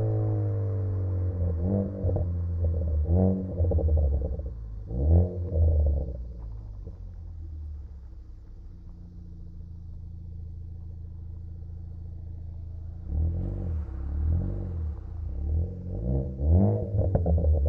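Ford Focus ST's turbocharged four-cylinder engine, breathing through a catless downpipe and cat-back exhaust on a tune set up to crackle and pop on the overrun, revved in quick blips. The revs drop at the start, it blips a few times, settles to a steady idle for several seconds, then is blipped repeatedly again near the end.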